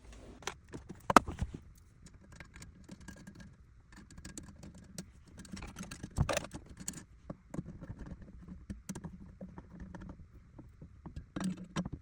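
Car floor carpet being trimmed and handled: irregular small clicks, taps and rustling, with a sharper knock about a second in and another around six seconds.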